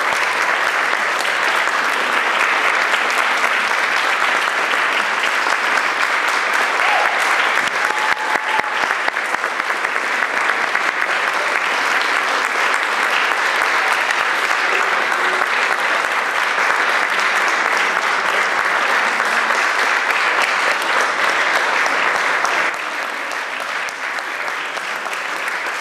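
Audience applauding steadily, dense clapping that eases a little near the end.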